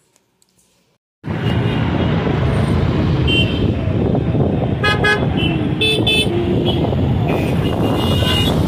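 Busy road traffic with car horns honking: after a near-quiet first second the dense noise of engines and traffic starts suddenly, and short horn toots sound several times, with a cluster of quick beeps around the middle.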